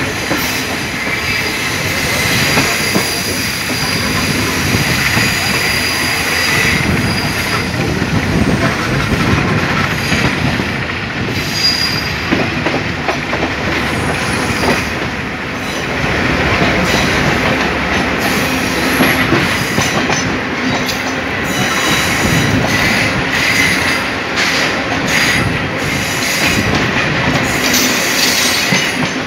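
Train wheels running on rails, heard from an open window of a moving passenger train: a steady clatter over the track and points, with thin high wheel squeal on the curves. Midway a diesel-hauled passenger train passes on the next track, its coaches going by close alongside.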